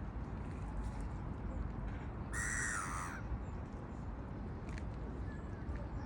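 A seagull gives one loud harsh call about two seconds in, lasting under a second, with a few fainter bird calls around it. Under it runs a steady low outdoor rumble.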